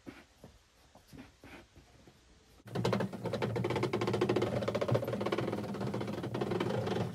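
Vehicle winch motor starting abruptly about two and a half seconds in and running steadily under load, a steady whine with rapid gear chatter as it drags the camper box onto the trailer.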